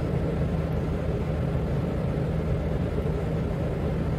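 A steady, unchanging low mechanical hum.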